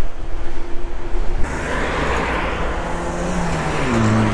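Riding noise from an electric bike in street traffic: wind rumble on the microphone with a steady whine. About a second and a half in, the sound switches abruptly to a hiss of tyres and traffic. Near the end a low engine-like hum falls in pitch and then holds steady.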